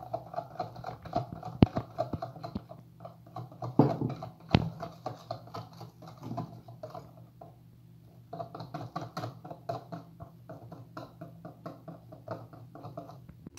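Metal wire whisk beating wet batter in a plastic bowl: quick rhythmic clicking and slapping as flour is stirred in, easing off briefly about halfway. A couple of sharper knocks stand out early on the whisk's strokes.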